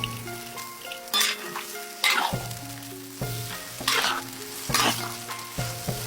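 Food frying and being stirred in a pan, with several loud bursts of sizzling and scraping, over background music with a slow melody.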